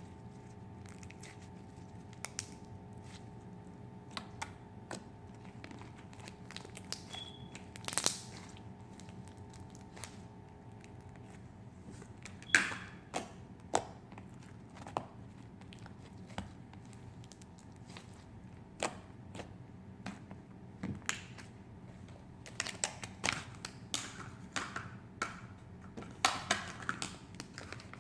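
Slime being squeezed and poked by hand, giving scattered small pops and crackles that come thicker near the end.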